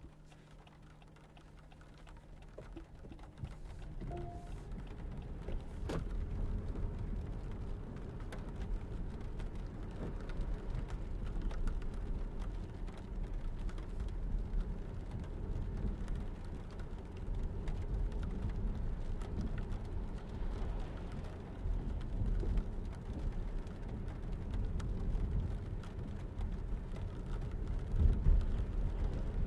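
Inside the cabin of a 2022 Lexus ES300h hybrid pulling away and driving at city speed on a wet road: tyre noise and hiss from the wet tarmac build over the first few seconds, then hold as a steady low rumble. Two sharp clicks sound about four and six seconds in.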